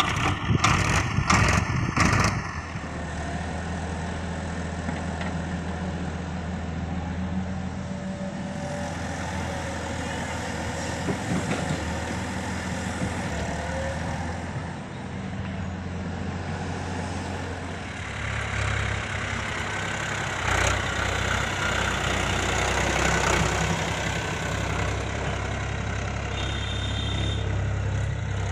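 Heavy diesel engine of a backhoe loader or tractor running steadily at low revs, with a few loud knocks in the first two seconds. The engine note rises and gets louder about eighteen seconds in, and a short high beep sounds near the end.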